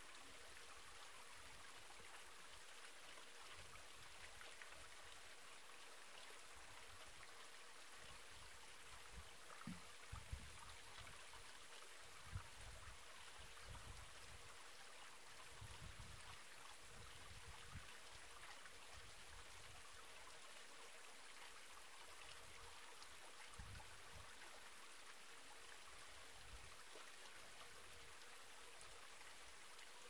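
Faint, steady patter of a thin waterfall trickling into a rock pool. Its flow is reduced to a trickle by drought. A few soft low bumps come around the middle.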